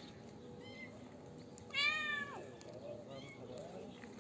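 Cats meowing: one loud, drawn-out meow about halfway through that drops in pitch at its end, with fainter short meows around it.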